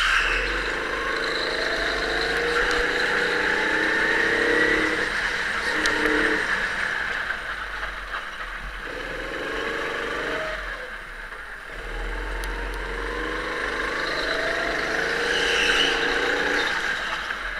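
Go-kart running hard around a track, heard from on board: its motor note climbs under acceleration and drops away twice as the driver lifts off for corners, then picks up again.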